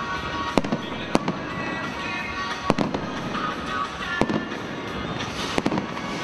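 Aerial firework shells bursting, about six sharp bangs at uneven intervals, with music playing underneath.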